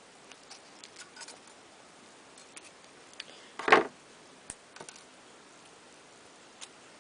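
Thin craft wire and wire cutters being handled: scattered small clicks and taps, with one louder scraping rustle about halfway through followed by a sharp click.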